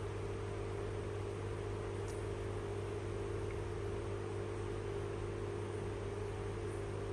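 Electrolux front-loading washing machine's drain pump humming steadily in diagnostic test mode, running on after the water has been pumped out.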